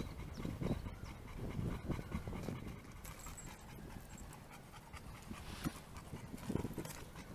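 Bullmastiff panting in a steady rhythm of breaths. The panting eases off in the middle and picks up again near the end.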